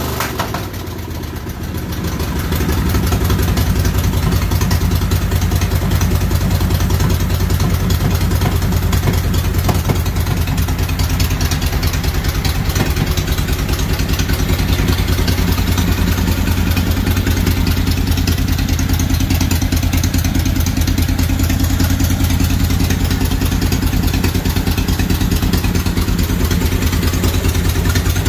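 Kohler CH18 V-twin engine running steadily after a head gasket replacement. It is quieter for the first two seconds, then picks up and holds an even speed.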